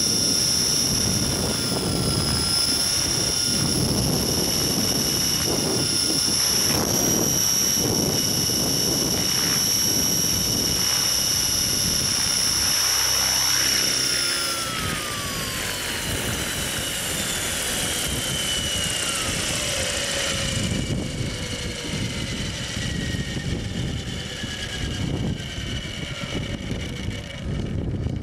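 Align T-REX 600E electric RC helicopter heard from its onboard camera: the motor and drivetrain whine steadily over a gusty rumble of rotor wind. About halfway through, once it is on the ground, the whine falls slowly in pitch as the motor and rotors spool down.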